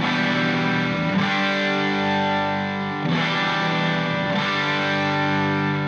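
Background instrumental music: sustained chords, changing about every second or so.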